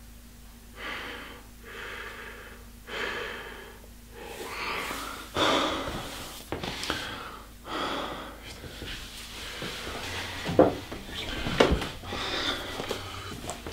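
A man breathing hard in ragged, distressed gasps, the breaths coming quicker and louder. A few sharp knocks sound near the end.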